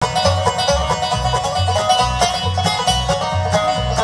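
Live bluegrass band playing an instrumental lead-in: banjo, fiddle, acoustic guitar and mandolin over an upright bass keeping a steady beat.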